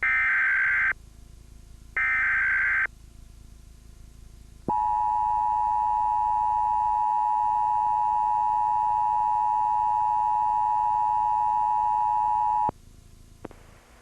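Emergency Alert System broadcast tones: two one-second bursts of the warbling digital SAME header. After a pause comes about eight seconds of the steady EAS two-tone attention signal, which cuts off suddenly. The tones announce an AMBER Alert child-abduction emergency.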